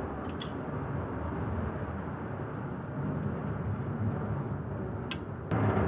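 Steady low mechanical rumble of flight-line background noise, with a few sharp metallic clicks from hand tools shortly after the start and again near the end; the rumble gets louder just before the end.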